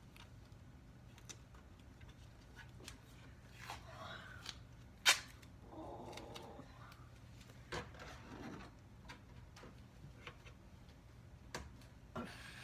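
Handling noises as a mesh screen is taped over a cabinet opening: brief rustles of mesh and duct tape with scattered light clicks, and one sharp click about five seconds in.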